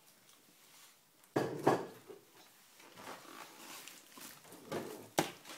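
Brown paper shopping bag rustling and crinkling in irregular bursts as a toddler rummages in it, with a sharp knock a little before the end.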